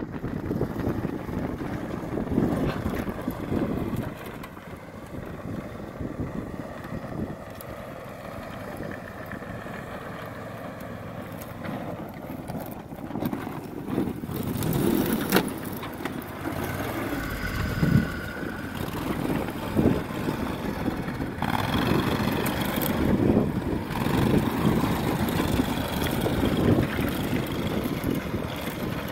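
Max Buffalo 6x6 amphibious ATV's engine running under load as it crawls over rocky ground and drives off, its level rising and falling, with a few sharp knocks.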